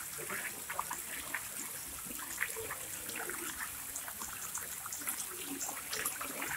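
A crowded shoal of carp feeding at the water surface: a constant patter of small splashes and slurping gulps as the fish jostle for food.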